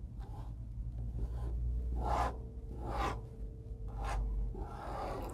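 Plastic spatula scraping and rubbing coir fibre absorbent across a tabletop, working it into a cooking-oil spill in a series of short scratchy strokes, about one a second.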